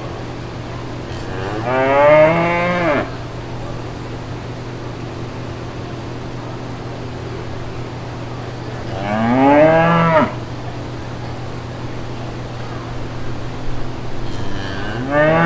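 Cattle mooing: three long moos several seconds apart, each rising and then falling in pitch, the last cut off at the end, over a steady low hum.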